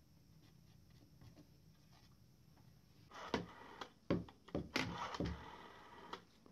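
Rotary-dial telephone being dialled: starting about three seconds in, the dial is turned and runs back several times, each with sharp clicks and a short whirring stretch.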